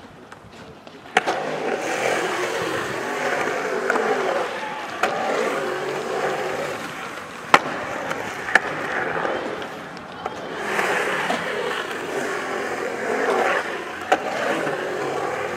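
Skateboard wheels rolling on a concrete bowl: a sharp clack about a second in as the skater drops in from the coping, then a steady rolling rush that swells and fades as he carves up and down the walls, with a few more sharp clacks of the board.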